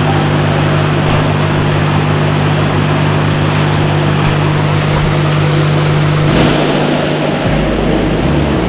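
Paddlewheel aerators running on a fish pond: a steady motor hum over churning, splashing water. The hum drops away about six seconds in while the water noise goes on.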